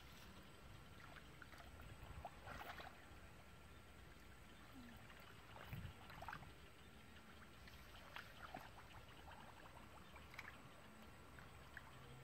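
Faint splashing and squelching of bare feet and hands in shallow, muddy paddy water, in a few short spells a couple of seconds apart.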